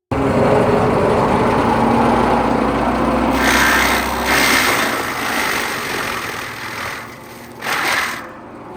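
Engine-driven machinery running hard with a dense, noisy sound that starts abruptly, eases off after about five seconds and surges briefly once near the end.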